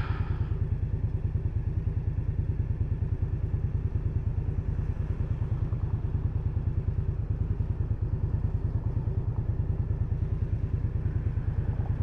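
Indian Scout Bobber motorcycle's V-twin engine running at a steady, unchanging speed, with an even low pulse from its firing strokes.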